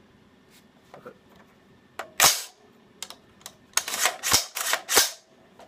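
AR-15 rifle being handled: a series of sharp metallic clacks and snaps from its action and magazine, a loud one about two seconds in and a quick run of several more between about four and five seconds.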